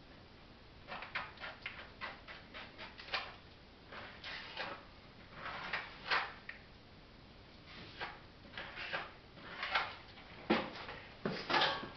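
Irregular short scraping strokes of a putty knife or trowel spreading epoxy over the Kevlar strap on a basement wall, starting about a second in.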